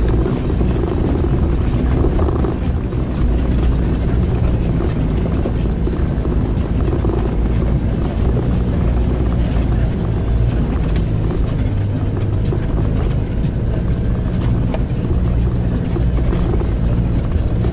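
Vehicle driving on a rough dirt track, heard from inside the cabin: a steady low engine and tyre rumble.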